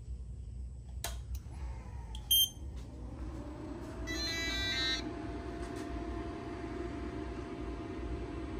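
A homemade LiPo charging case powering up: a switch click about a second in and a short high beep, then its cooling fans spin up into a steady whir with a low hum and a steady tone. About four seconds in, the iCharger chargers play a brief electronic start-up tune of stepping beeps.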